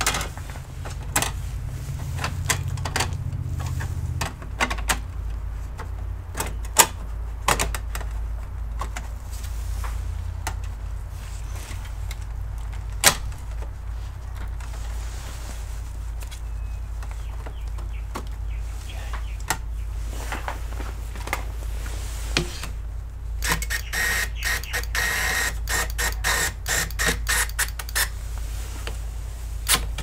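Metal drive cage and chassis parts of an HP ENVY 23 all-in-one being handled and fitted: scattered clicks and knocks over a steady low hum. Near the end comes a quick run of rattling clicks.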